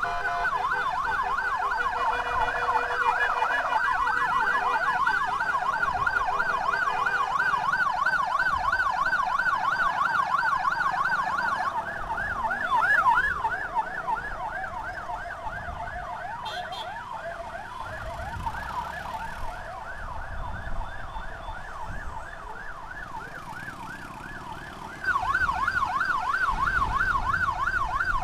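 Emergency vehicle siren on a fast yelp, its pitch sweeping up and down about three times a second over road and engine noise. About halfway through it grows quieter, and near the end it comes back loud.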